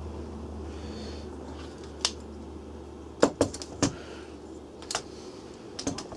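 Light clicks and taps of hands working on a Sharp GF-6060 cassette mechanism as its rubber drive belts are fitted back on: a single click about two seconds in, a quick cluster of them a little after three seconds, and a few more near the end, over a steady low hum.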